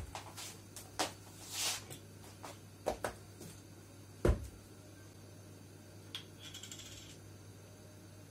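A plastic bottle of cooking oil being picked up and handled on a kitchen counter: scattered light knocks and clicks, the loudest a single thump about four seconds in, over a faint steady low hum.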